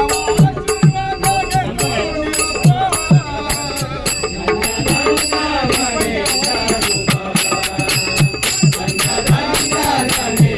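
Devotional bhajan music in raga Bhairavi: repeated deep drum strokes, jingling percussion and a gliding melodic line.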